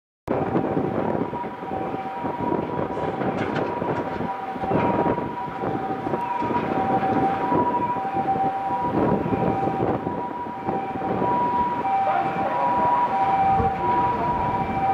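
A two-tone electronic warning alarm sounding steadily, its two pitches held together with short breaks, over a rumble of street traffic and demolition machinery with a few knocks.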